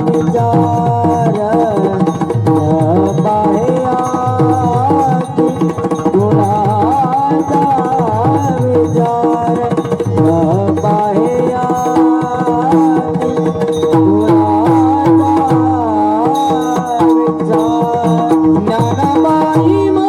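Marathi devotional abhang music: hand-drum strokes in a steady rhythm under a sustained drone and a bending, wavering melodic line.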